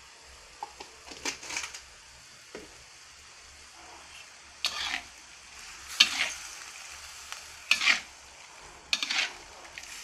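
Spatula stirring and scraping stir-fried pork in a hot pan, in about five separate strokes a second or two apart, over a faint sizzle.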